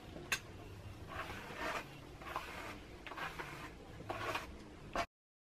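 Hands gathering and sliding through long hair: a click just after the start, then four soft rustling swishes about a second apart. The sound cuts off suddenly near the end.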